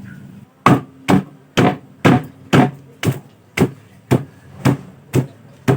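Fresh ginger, galangal and lemongrass being bruised for jamu with steady, even blows, about two a second, eleven strikes in all.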